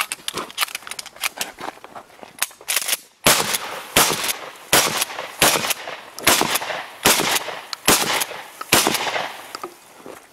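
Pump-action shotgun fired eight times in a steady string, a shot about every three-quarters of a second, with quieter clicks and knocks in the first few seconds before the shooting starts.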